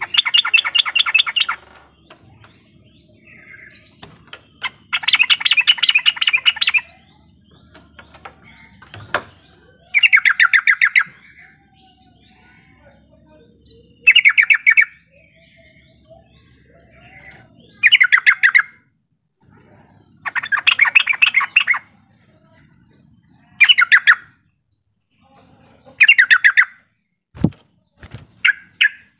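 Yellow-vented bulbul singing: short phrases of quick chattering notes, repeated every three to four seconds. There is a sharp knock near the end.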